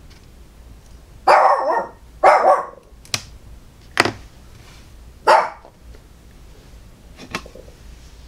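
A dog barks three times, the first two close together and the third a few seconds later. Three sharp clicks or taps fall between and after the barks.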